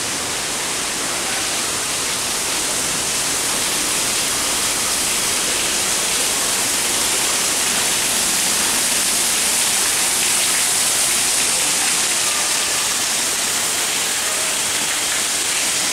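A steady, even rushing hiss, strongest in the high range, like falling water or spray.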